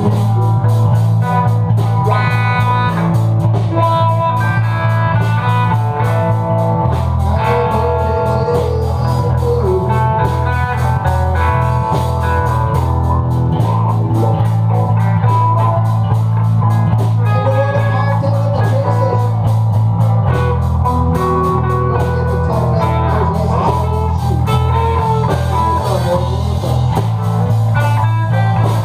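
A band playing a blues jam: an electric guitar plays lead lines over bass and drums. A heavy, boomy bass dominates the mix and changes chord about every seven seconds.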